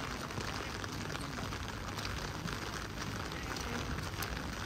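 Heavy rain falling steadily: an even hiss of many drops, with a low steady rumble underneath.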